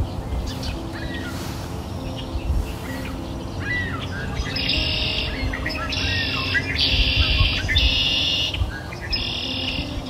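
Songbirds chirping and singing, with bursts of fast trilling song about a second long from about halfway through, over soft sustained low tones that shift slowly in pitch like a gentle background melody.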